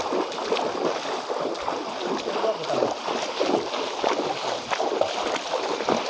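Feet splashing through shallow river water as people wade along the riverbed, with many small uneven splashes over the running water.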